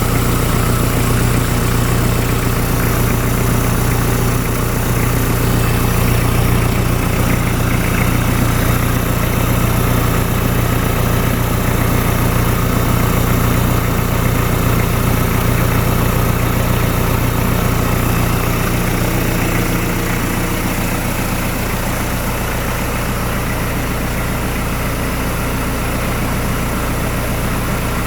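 Hyundai D4BH 2.5-litre four-cylinder turbodiesel idling steadily while its oil pressure is checked. It gets a little quieter about two-thirds of the way through.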